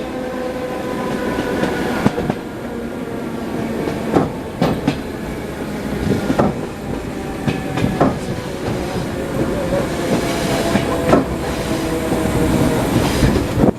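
Wheels of an ED9M electric multiple unit clattering over rail joints inside the passenger car: steady running noise with a hum, broken by irregular sharp knocks every second or two.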